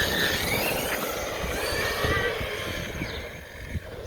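Traxxas Sledge RC monster truck being driven on the road, its electric motor whining and rising in pitch as it speeds up several times, over tyre and drivetrain noise.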